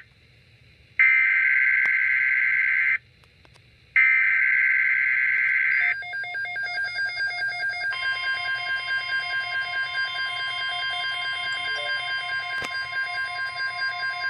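Emergency Alert System signal: two loud, shrill data bursts of the SAME header, each about two seconds long with a second's silence between. Then, about six seconds in, a pulsing, beeping attention tone begins, joined about two seconds later by a steady higher tone, and it runs on without a break.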